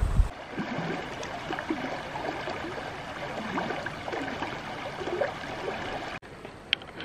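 Shallow, fast river running over gravel: a steady rush of water with gurgling. It cuts off suddenly near the end, leaving a quieter stretch with a couple of faint clicks.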